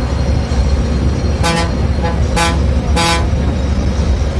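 Bus horn sounding three short blasts in under two seconds, the last a little longer, over the steady low drone of the bus engine heard from inside the driver's cab.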